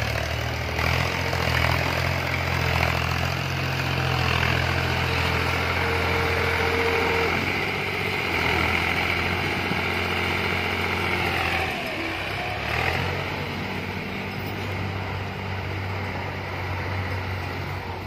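Diesel engines of a Belarus 510 and an Al-Ghazi farm tractor running under load as the tractors push soil with their blades. The engine note drops about twelve seconds in and picks up again a second later.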